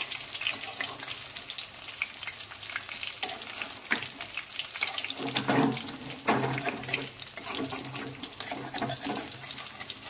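Battered chicken leg pieces frying in hot oil: a steady sizzle with many short crackling pops.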